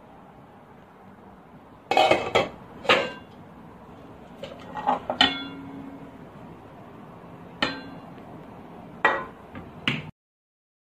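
A glass pot lid and a stone-coated non-stick frying pan being handled, clanking and clinking against each other in irregular knocks, several of them ringing briefly. The sound cuts off suddenly near the end.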